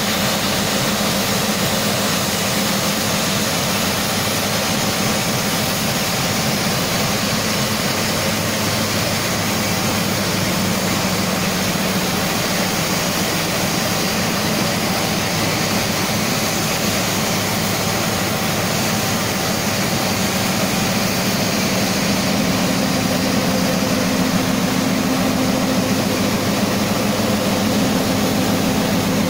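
Nilgiri Mountain Railway X class steam rack locomotive standing at the platform with steam venting in a steady loud hiss, over a steady low hum that grows a little stronger about two-thirds of the way through.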